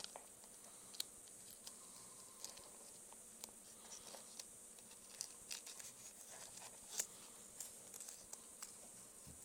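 Faint scratching and crinkling of vinyl film with scattered sharp ticks over a steady high hiss; the loudest tick comes about seven seconds in.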